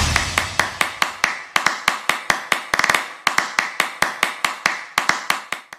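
Tail of a percussive intro music track: an even, fast tapping rhythm of about five taps a second, fading steadily and cutting off near the end.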